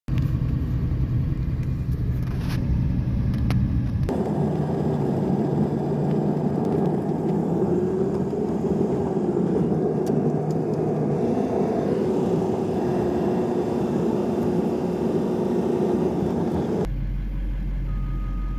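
Steady engine and road noise from inside the cab of a Duramax diesel pickup as it drives, in a few clips joined with abrupt changes. Near the end a deep hum takes over and a heavy machine's reversing beeps start.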